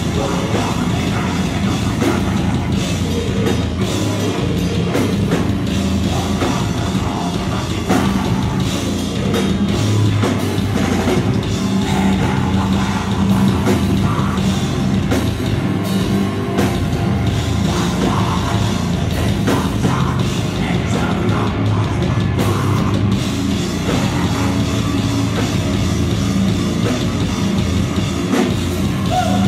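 Heavy metal band playing live at full volume: distorted electric guitars and a drum kit, with a vocalist on the microphone.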